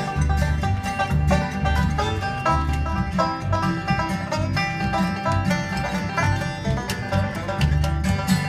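Acoustic band playing a bluegrass-style instrumental opening: banjo picking over acoustic guitar strumming and upright bass notes, with no singing.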